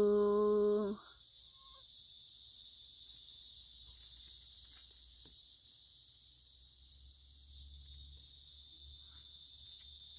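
A person hums one held note for about a second at the start. After that, only a steady high chirring of insects goes on.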